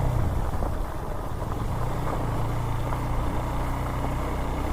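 Motorcycle engine running steadily at low revs, a low even drone with rough road and wind noise over it.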